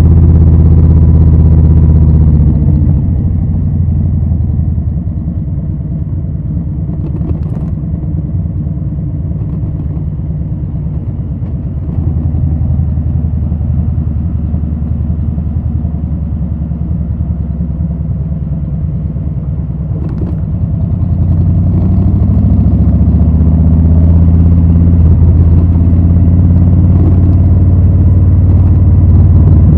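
Harley-Davidson Low Rider S's Milwaukee-Eight 114 V-twin running through Rinehart slip-on mufflers, a deep steady rumble. The revs fall away about two seconds in and the engine runs lower and quieter for a while. About two-thirds of the way through it pulls up again and stays loud.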